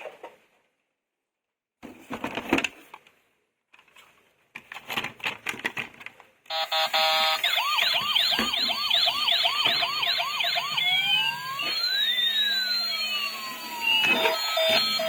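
Clicks and rattles of handling, then about six and a half seconds in, a toy emergency vehicle's electronic siren starts. It plays fast rising-and-falling sweeps about twice a second, then slower crossing glides, and switches to a rapid beeping near the end.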